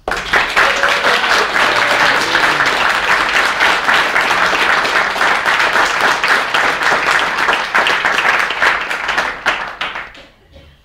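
A roomful of guests applauding: clapping breaks out suddenly, holds steady for about nine seconds, then dies away near the end.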